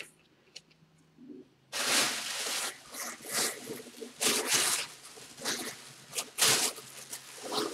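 Thin plastic bag crinkling and rustling as a football helmet is handled and slid into it. It starts suddenly about two seconds in and goes on unevenly, louder and softer by turns.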